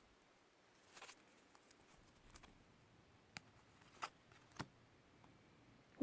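Near silence with about five faint clicks and rustles of baseball trading cards being handled and turned over.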